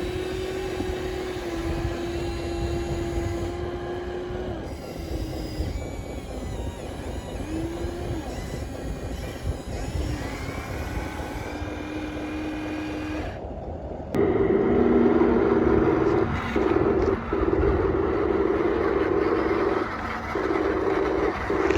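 Electric motors of radio-controlled toy construction machines whining in short runs, the pitch stepping up and down as they start and stop. About fourteen seconds in, a louder, steady motor whine starts and cuts out briefly several times.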